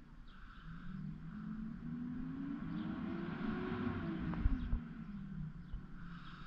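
Rear-loader garbage truck's engine revving up and easing back down, a drone that climbs in pitch and falls again over about four seconds. Two low thumps come near its end.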